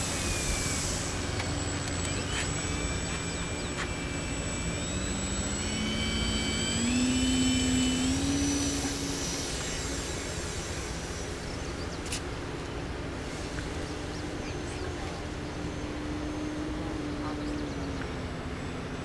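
Radio-controlled Hurricane model airplane's engine running at full throttle on takeoff: its note rises as the plane accelerates and climbs, is loudest about seven or eight seconds in, then holds steady and grows fainter as the plane flies off.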